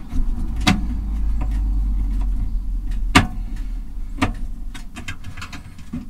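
A few sharp knocks and clicks as a screwed panel above a microwave is worked loose by hand. Under them is a steady low rumble that fades out about five seconds in.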